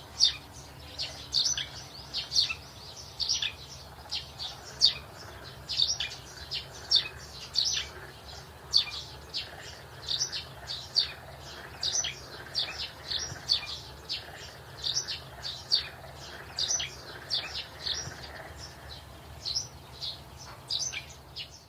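Small birds chirping continuously, short high notes a few times a second, over a faint steady low hum.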